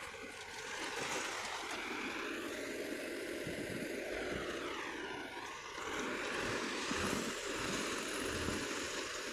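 Steady engine noise from road-construction machinery, with a sweeping shift in tone about five seconds in.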